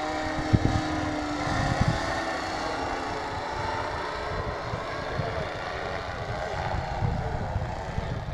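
Small propeller motor of a radio-controlled powered paraglider droning steadily overhead, its pitch drifting slowly as it flies past. Wind rumbles on the microphone throughout, loudest in two gusts in the first two seconds.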